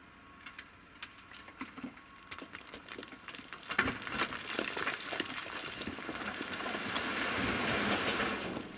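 Broken stone tipping out of a site dumper's raised skip onto a rubble heap. A few scattered stones clatter at first, then about four seconds in a dense rattling rush of rubble slides out, growing louder before dying away near the end.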